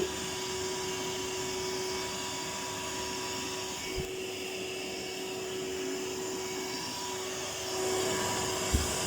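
Vacuum cleaner running steadily with a constant hum, with a brief knock about four seconds in and a sharper, louder knock near the end.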